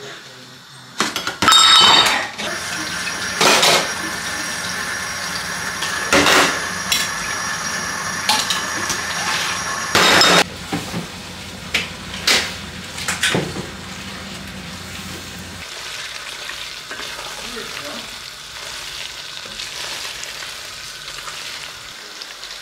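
Kitchen work sounds: bowls and dishes clinking at a steel sink with water running, then a wooden spoon stirring a pot of pasta on the hob, with light sizzling. Sharp clinks come near the start and again around 3, 6 and 10 seconds in, over a steady hum that stops about 16 seconds in.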